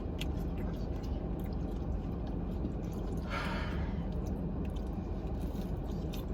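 Chewing and small mouth and food-wrapper clicks over a steady low car-cabin rumble, with a brief rustle a little over three seconds in.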